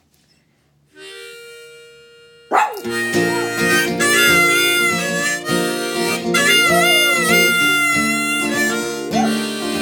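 A soft acoustic guitar chord rings about a second in. From about two and a half seconds, harmonica and strummed acoustic guitar play together while a small dog howls along, its wavering, gliding voice rising above the held harmonica notes.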